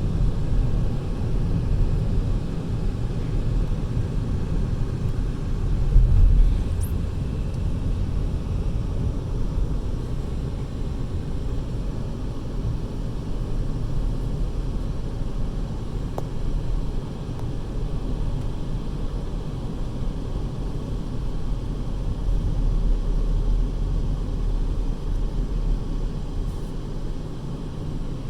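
Steady low road and engine noise of a car being driven, heard from inside the cabin, with one brief louder bump about six seconds in.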